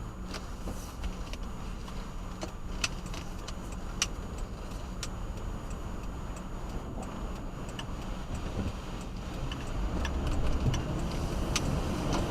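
Car engine and road noise heard from inside the cabin, with scattered sharp ticks and clicks. The rumble grows louder near the end.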